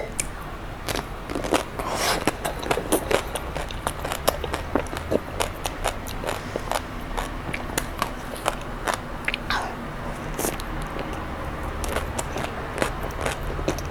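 A chocolate-coated ice cream bar being bitten and chewed close to the microphone: many short, crisp cracks of the chocolate shell scattered throughout, over a low steady hum.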